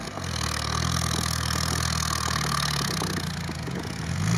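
An off-road vehicle's engine running steadily at low revs, its note shifting slightly near the end.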